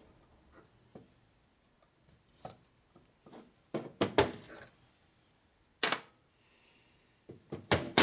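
Sharp metal clinks and knocks as a Harley-Davidson WLA transmission case and its parts are handled and fitted together. There are scattered single knocks, with a quick cluster of three about halfway through and another near the end.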